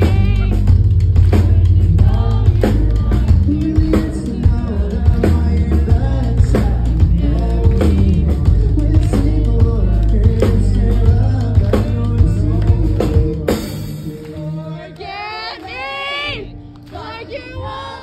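Live rock band playing loud: drum kit, bass and guitar under a singer. About thirteen seconds in the band stops short, and only a single voice carries on, sliding up and down in pitch.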